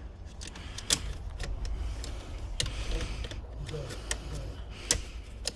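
Sharp clicks and light knocks of hard plastic and metal parts being handled during reassembly of a car seat's wiring and fittings, three of them louder, about a second apart to a couple of seconds apart, over a steady low hum.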